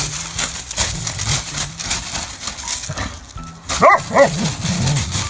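A dog barking twice in quick succession about four seconds in, with a short lower whine or grumble after, over repeated scratchy scuffing.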